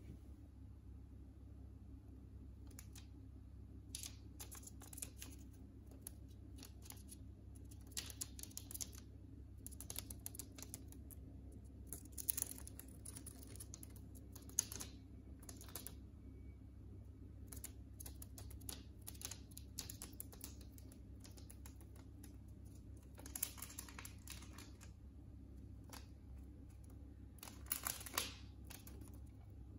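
A budgie scrabbling and pecking at a sheet of newspaper: irregular light paper rustling and crinkling with small clicks, in louder bunches near the middle and twice near the end.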